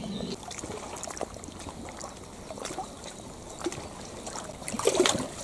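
Faint water trickling at the shoreline, with a few soft clicks and a brief louder sound near the end.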